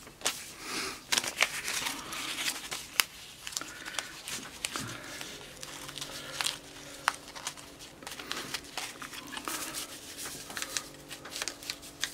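Sheet of cloth-backed sandpaper rustling and crinkling as it is handled and wrapped around a wooden sanding drum to check its length, with scattered sharp clicks and taps.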